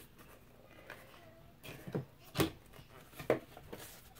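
Thin cardboard panels cut from cereal boxes being handled and set down on a table, with light rustling and a few short taps. The loudest tap comes a little past halfway, and another follows just under a second later.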